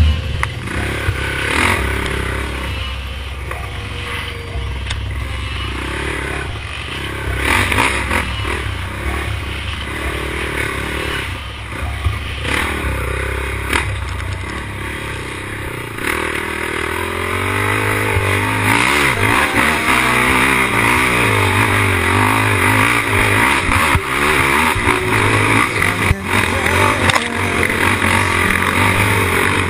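Honda racing quad's engine revving up and down under hard throttle over a rough dirt trail, with knocks and clatter from the bumps. It gets louder about two-thirds of the way in, where the engine pitch rises and falls quickly.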